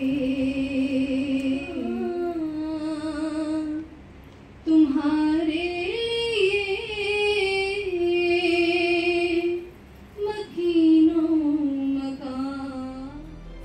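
A female voice singing solo in long, slow held notes with vibrato, breaking off briefly twice.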